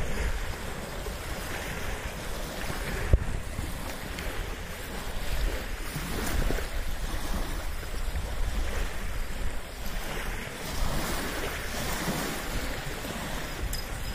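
Small wind-driven waves splashing and lapping on a stony shore, with wind buffeting the microphone. A single sharp knock about three seconds in.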